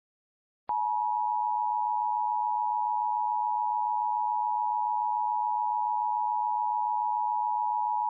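Emergency Alert System attention signal: the steady two-tone 853 and 960 Hz alert tone, starting under a second in with a click and held at an even level. It marks the start of an emergency alert, ahead of the spoken message.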